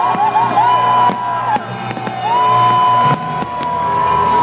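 Crowd whistling and whooping after the fireworks: several long, high whistled notes that slide up and then hold, over crowd noise. A few firework bangs cut through near the middle.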